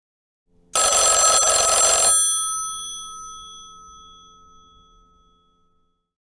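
Telephone bell giving a single ring of about a second and a half, the bells then fading out over about three seconds.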